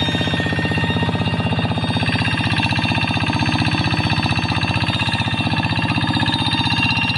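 Single-cylinder diesel engine of a Kubota two-wheel hand tractor running steadily with a rapid, even firing beat, pulling a plow through the soil.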